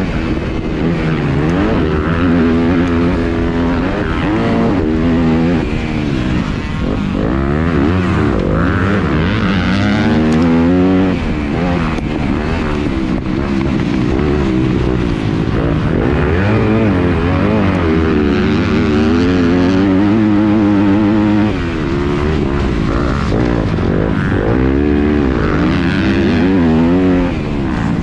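Yamaha YZ250F four-stroke single-cylinder motocross engine heard up close from the bike, revving hard and falling back over and over as the rider works the throttle and shifts. It drops off briefly twice near the end.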